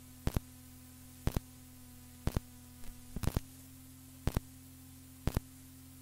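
Low steady hum with a sharp double tick about once a second, and a few extra ticks around the middle.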